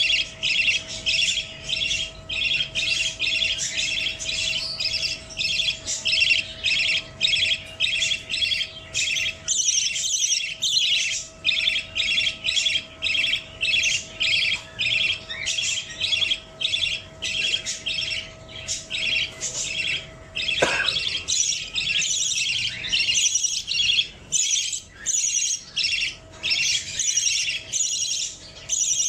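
Budgie chirping and squawking in a rapid, continuous run of short high calls, a few each second, with a brief lull about ten seconds in.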